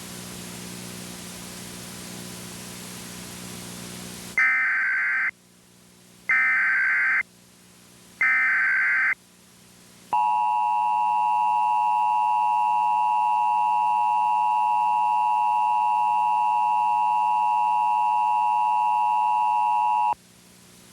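Emergency Alert System tones: a steady hiss with a low hum, then, about four seconds in, three short bursts of SAME header data tones about two seconds apart, followed by the two-tone EAS attention signal held steady for about ten seconds, which cuts off near the end.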